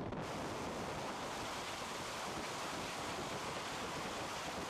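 Rocket motors firing on a rocket sled, heard through the sled's onboard camera: a steady, even rushing noise.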